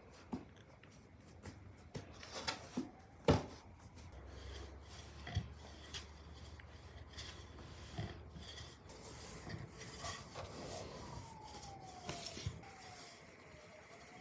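Wooden rolling pin rolling out soft dough on a floured wooden board: quiet rubbing with scattered light knocks of wood on wood, the sharpest about three seconds in.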